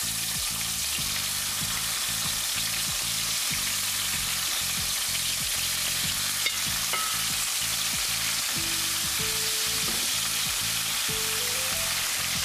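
Lamb tenderloins frying in hot oil in a frying pan, a steady sizzle.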